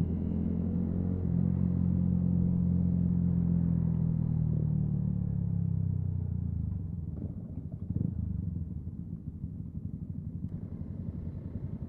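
Yamaha MT-125's single-cylinder four-stroke engine running under way, then easing off from about five seconds in as the bike slows. For the last few seconds it settles to a quieter, pulsing beat, with a single knock about eight seconds in.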